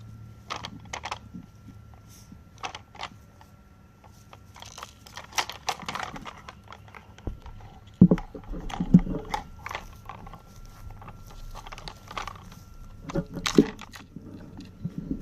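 Sheltie puppy working a Nina Ottosson Dog Tornado puzzle toy: irregular clicks, knocks and scrapes of its plastic parts as the puppy paws and noses at it, with the heaviest knock about eight seconds in.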